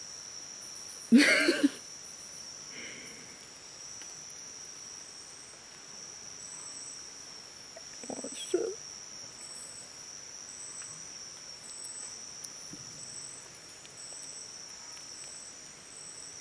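Insects chirring steadily, a high trill with a higher chirp pulsing about once a second. Two short voice-like sounds break in, a louder one about a second in and another about eight seconds in.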